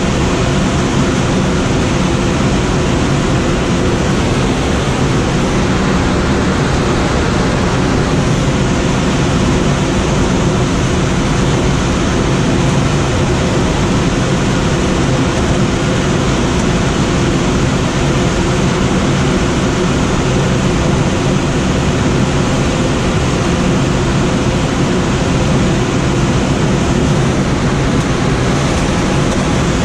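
Steady rush of air over a Schweizer SGS 2-32 glider in unpowered soaring flight: a loud, even wind noise with a faint low hum beneath it.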